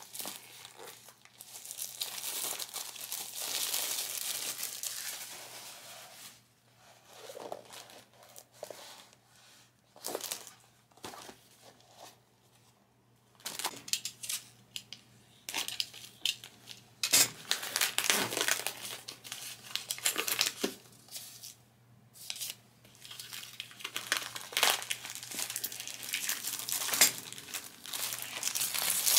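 Clear plastic wrapping crinkling and tearing as it is handled and pulled off packaged art supplies. The rustling comes irregularly, with a couple of short pauses.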